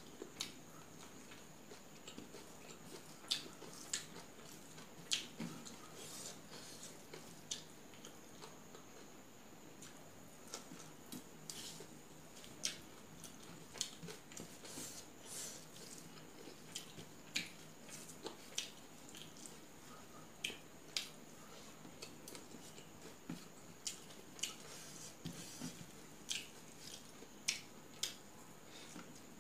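Close-up eating sounds: irregular wet mouth clicks and smacks of chewing rice and fish curry eaten by hand, a few per second. Fingers mix rice on a steel plate.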